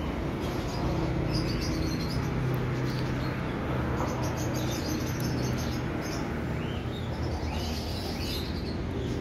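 Small birds chirping in short bursts, a cluster about a second and a half in and more near the end, over a steady low hum.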